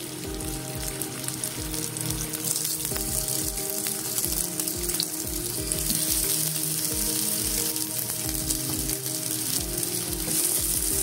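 Hot oil sizzling in a shallow-fry pan as cutlets of leftover roti and potato are laid into it one after another, a steady crackling hiss. The sizzle grows slightly louder as more cutlets go in.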